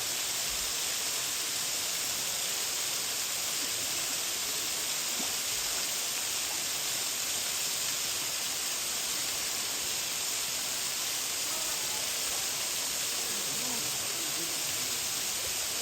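Steady rushing hiss of a waterfall pouring into its pool, even and unbroken.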